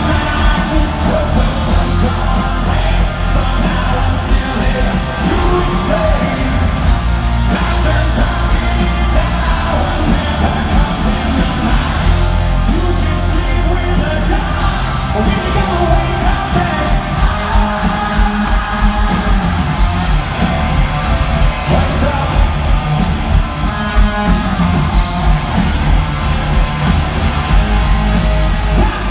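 Hard rock band playing live at full volume, with a shouted, sung lead vocal over distorted guitars, heavy bass and pounding drums.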